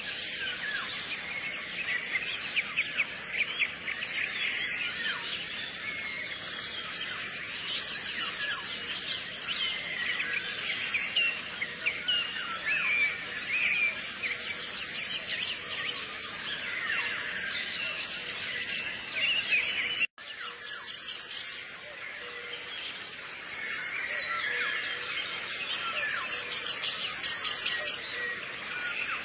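Chorus of small songbirds chirping and twittering continuously, with fast trills twice. It breaks off for an instant about two-thirds of the way through.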